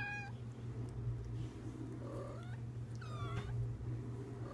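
Young kittens meowing: three high-pitched mews, at the start, about two seconds in and about three seconds in, the last sliding down in pitch. A steady low hum runs underneath.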